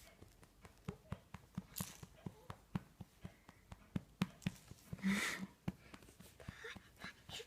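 Soft, uneven pats on a baby's back from a small child's hand, about three a second, as he tries to wind her. A short breathy sound about five seconds in.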